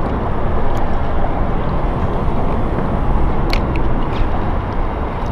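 Wind buffeting the microphone over open water, a loud rumbling noise with water lapping at the small boat, and a few sharp clicks about three and a half seconds in.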